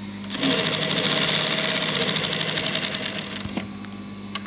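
Twin-needle industrial lockstitch sewing machine stitching a seam at a fast, even patter for about three seconds, then stopping. A few sharp clicks come near the end, over a steady low hum.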